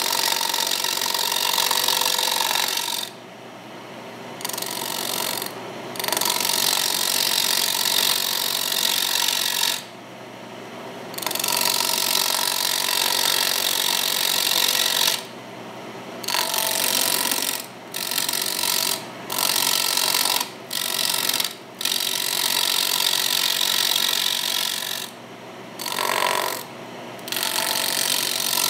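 Turning tool cutting the spinning rectangular mahogany blank on a wood lathe: a rough, interrupted cut as the tool meets wood and air in turn past the centre of the blank. The cutting noise drops away briefly several times where the tool comes off the wood, while the lathe keeps running.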